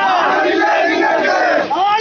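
A crowd of men shouting protest slogans together, loud and dense, with a brief dip near the end.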